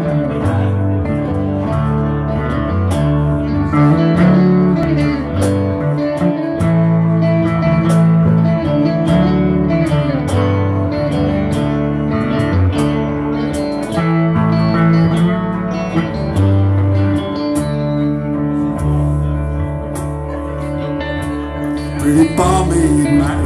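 Live rock band playing an instrumental passage on electric guitars over a low bass line, with sharp hits on a steady beat.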